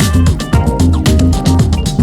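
Background music with a steady beat, drums and bass.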